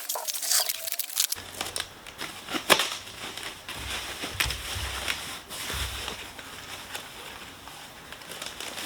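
Packaging being handled and unwrapped, with crinkling, tearing and a run of irregular clicks and knocks, the sharpest about three seconds in.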